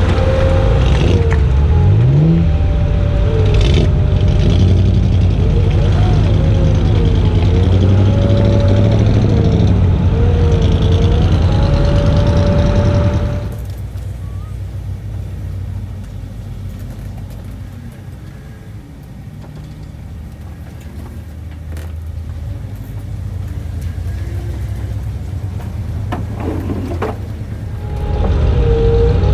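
Off-road vehicles running slowly along a muddy trail: a loud engine with a brief rev about two seconds in, then about halfway through a quieter, muffled engine heard from inside a Ford Bronco's cab, loud again near the end.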